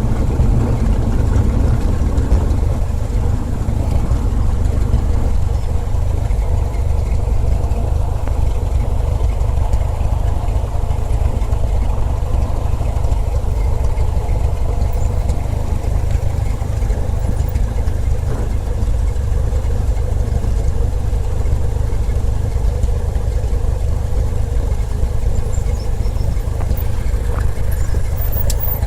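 Light propeller aircraft's engine running steadily: a continuous low drone with a faint steady tone above it.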